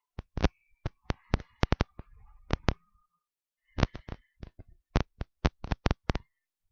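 Computer mouse buttons clicked in quick succession, about twenty sharp clicks in two runs with a short pause between them.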